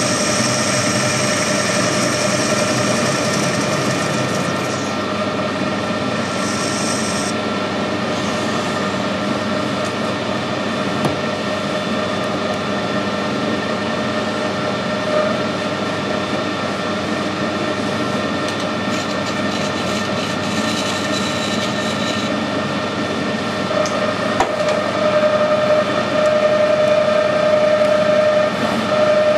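Metal lathe running steadily, its gearing giving a held whine, while a tool squares up the end of a spinning round metal bar. A high hiss in the first few seconds, and the whine grows louder near the end.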